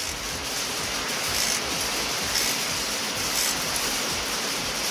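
A steady, even hiss with no taps, knocks or other distinct events.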